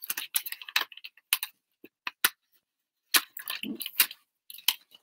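Handling of white card and a thin metal cutting die: a scattered series of sharp clicks, crackles and paper rustles as the die is lifted off and the die-cut shirt shape is pressed out of the card, with a few heavier knocks about three to four seconds in.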